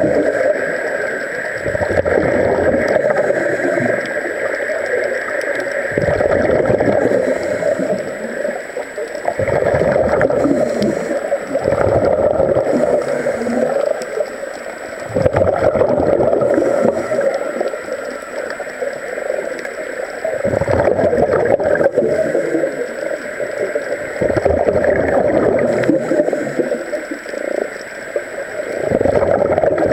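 Scuba regulator breathing heard underwater: a bubbling rush of exhaled air swells up about every four to five seconds, over a steady underwater drone.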